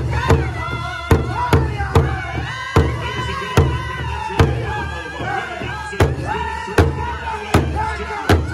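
Powwow drum group singing a Grand Entry song in high, strained voices, several singers striking one large shared drum together in a steady beat of about one to two strikes a second.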